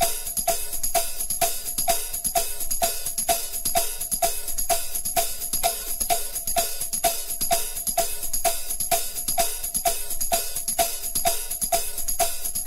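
Instrumental music with a steady, driving drum and tambourine beat and a short pitched note repeating about twice a second, with no vocals.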